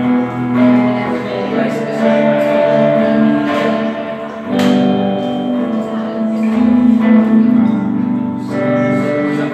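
Live music: a hollow-body guitar strummed and picked, with a man's voice holding long, wavering notes over it.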